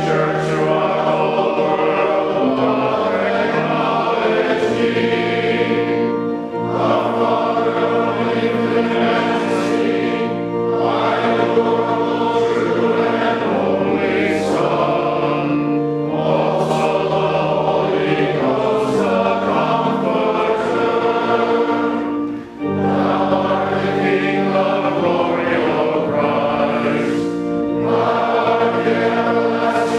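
A choir singing a hymn in sustained chords, line by line, with short breaths between phrases.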